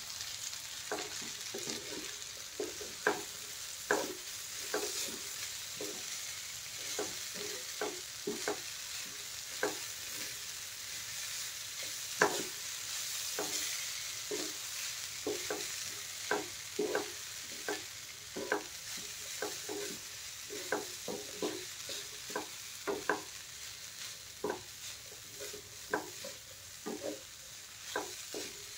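Wooden spatula stirring and tossing soaked poha with cooked vegetables in a nonstick frying pan, knocking and scraping against the pan irregularly about once or twice a second over a steady sizzle.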